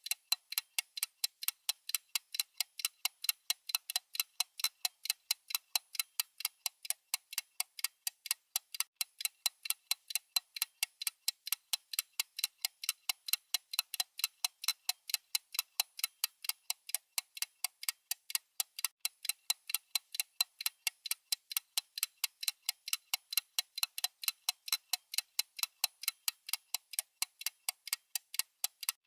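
Clock-style ticking sound effect of a countdown timer: crisp, even ticks, several a second, with nothing underneath.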